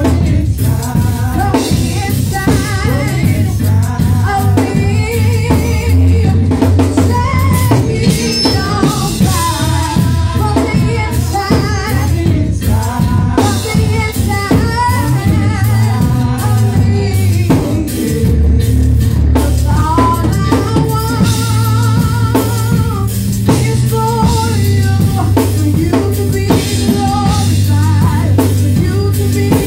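Gospel praise song sung by several singers through microphones over drums and bass, loud and continuous.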